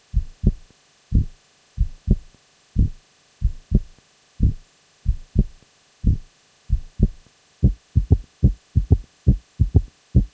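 Heart sounds with an added third heart sound (S3): repeating groups of three short, low thuds, S1 and S2 followed closely by S3 in early diastole, the 'Kentucky' rhythm of a ventricular gallop. The cycles are played slowed down at first, then speed up to real-time heart rate about seven and a half seconds in.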